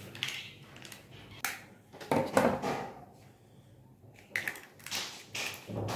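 A hen's egg being cracked and its shell broken open by hand: a handful of short cracking and crunching noises, the loudest about two seconds in and several more near the end.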